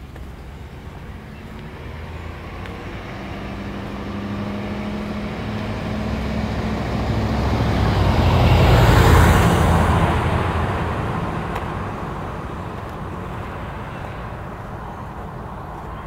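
A car drives past on the street, its engine and tyre noise growing louder as it approaches, loudest about nine seconds in, then fading as it moves away.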